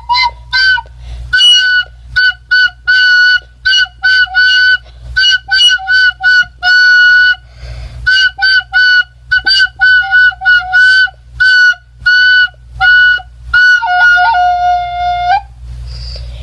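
A child playing a recorder: a Christmas carol tune in short, separately tongued, high-pitched notes, ending on a longer held note near the end.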